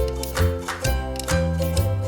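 Upbeat background music for children: a plucked or struck melody over a bass line, with new notes about twice a second.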